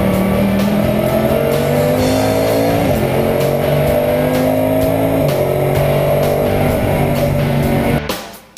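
Race car engine heard from inside the cockpit, accelerating with its pitch climbing, then dropping sharply at two gear changes about three and five seconds in, and holding steady afterwards. The sound cuts off abruptly near the end.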